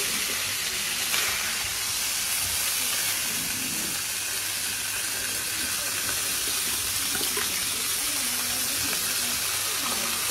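Fish pieces frying in oil on a hot flat iron griddle (tawa), a steady sizzle.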